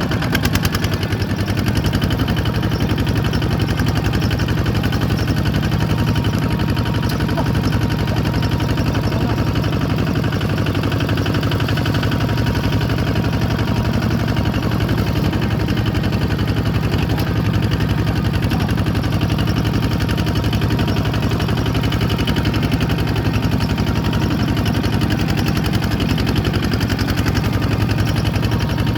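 Bulldozer's diesel engine running steadily at an even speed, with a fast, regular firing beat.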